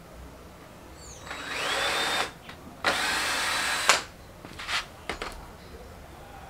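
Cordless drill run in two bursts of about a second each: the first rises in pitch as the motor spins up, the second holds a steady higher pitch. A few light knocks follow.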